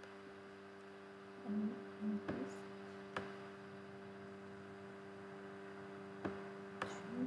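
Steady electrical mains hum on a voice recording, with a few faint clicks spread through it and a brief soft vocal sound about one and a half seconds in.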